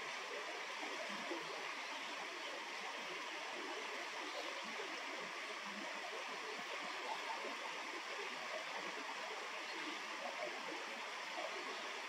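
Flowing water babbling steadily, as from a stream or river running past.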